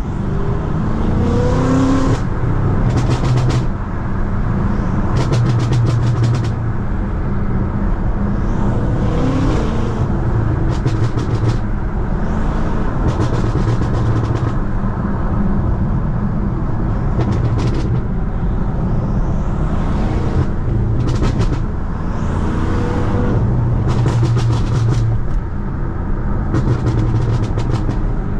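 BMW F90 M5's twin-turbo V8 under way, revving up several times. Between the revs come bursts of rapid crackling pops from the exhaust of its pop-and-bang tune.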